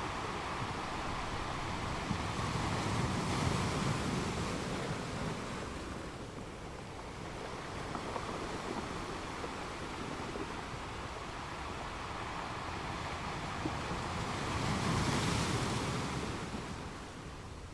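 Gentle ocean waves washing onto a sandy beach: a steady rush of surf that swells twice, about three seconds in and again near the end.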